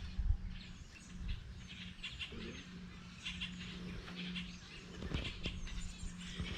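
Small birds chirping, short chirps repeated in quick runs, over a steady low hum and a few light low knocks.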